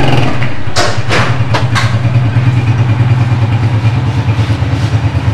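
Motorcycle engine idling steadily, with four sharp knocks or clicks in the first two seconds.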